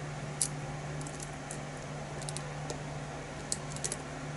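Irregular small metallic clicks and ticks of a lock pick and tension wrench working the pins inside a challenge lock, the sharpest click about half a second in, over a steady low hum.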